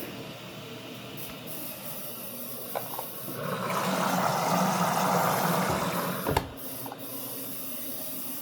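Samsung AddWash front-loading washing machine taking in water for its rinse: a steady hiss of water entering the drum. The hiss swells louder about three seconds in, then drops back after a sharp click a little after six seconds.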